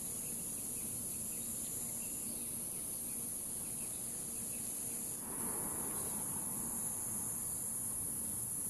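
Steady, high-pitched shrill of insects calling outdoors. About halfway through, a soft rushing noise swells underneath.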